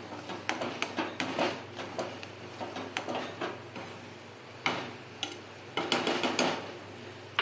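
Metal spoon clinking and scraping against a kadhai while thick cooked besan pithla is stirred: a run of quick knocks, a short pause about halfway, then a few louder knocks.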